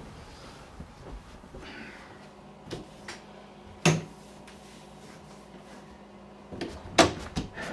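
A few sharp knocks and clicks of something being handled in a quiet room, like a cupboard or drawer. The loudest comes about four seconds in, and a quick cluster follows near the end.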